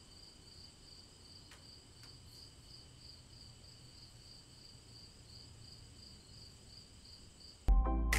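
Faint chirping of crickets, an even high-pitched pulsing that keeps going with no break. Music comes in suddenly near the end.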